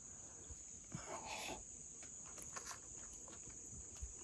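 Steady high-pitched insect chorus, like crickets, with a short muffled sound about a second in and a few faint clicks.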